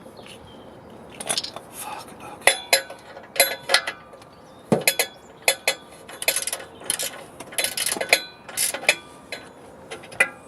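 Steel hand tools clinking against the exhaust fittings while a socket is worked on the catalytic converter joint: irregular sharp metallic clicks and taps, sometimes several in quick succession.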